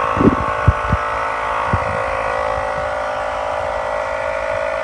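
Portable tire-inflator air compressor running steadily with a constant high-pitched drone, pumping air into a vinyl inflatable pool. A few light knocks sound in the first two seconds.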